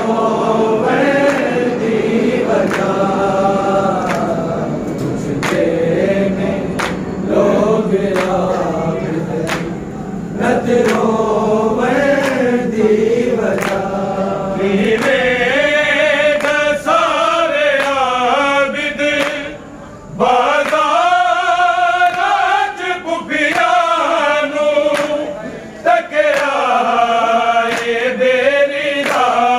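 A group of men chanting a Shia noha (mourning lament) together, unaccompanied, in long rising and falling melodic lines.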